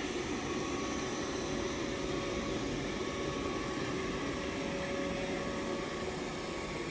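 Gausium Vacuum 40 robot vacuum running: a steady whirring hiss with a faint, steady whine over it.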